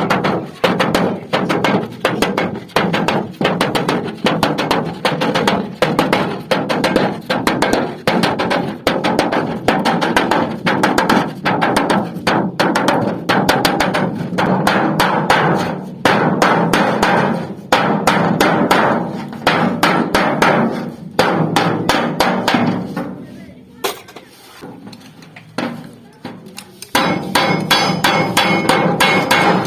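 Hand hammering on sheet metal from an old refrigerator casing, which is being beaten into a pot: a fast, steady run of sharp metallic strikes. The strikes ease off and go quieter for a few seconds near the end, then pick up again with a slight ring.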